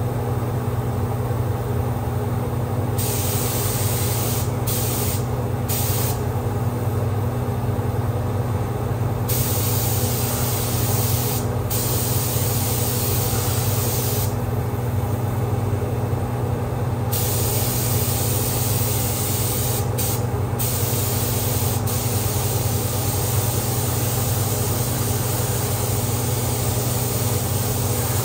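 Compressed-air paint spray gun hissing in on-and-off stretches of a few seconds as its trigger is pulled and released, spraying paint. Under it runs the steady drone of the paint booth's exhaust fan.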